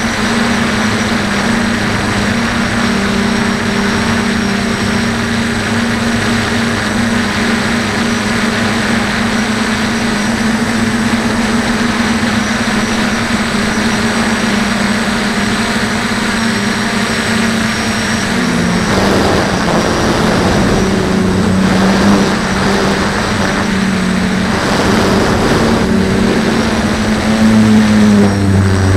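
DJI F450 quadcopter's four brushless motors and propellers, heard from the camera mounted on the frame, giving a steady buzzing drone. Its pitch wavers in the second half as motor speed changes, and it grows a little louder near the end.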